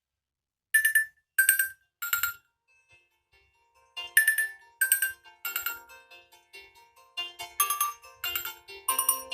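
Nokia 6 stock ringtone. Three bright chime notes step down in pitch, starting just under a second in, followed by a pause. The same three notes then return over a soft backing that builds into a fuller, busier melody.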